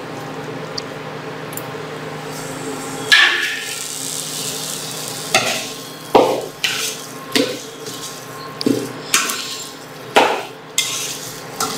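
A slotted steel spoon stirring and mashing potato masala in a stainless steel kadai: a steady low hum for about three seconds, then around eight quick scraping strokes, the spoon scraping against the pan.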